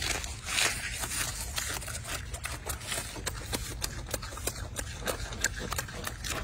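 Scattered crisp clicks and crackles of fresh leafy greens being handled by a golden snub-nosed monkey, over a low steady hum.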